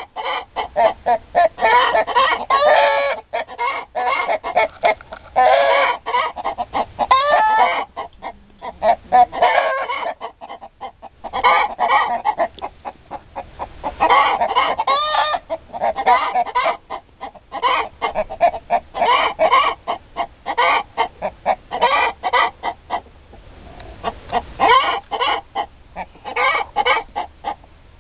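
A flock of chickens clucking in a dense, rapid stream of calls, easing off briefly twice.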